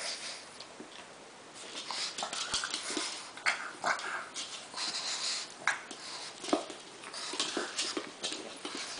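Adult pug and pug puppy play-fighting, making a run of short, breathy dog noises with some scuffling, starting about a second and a half in.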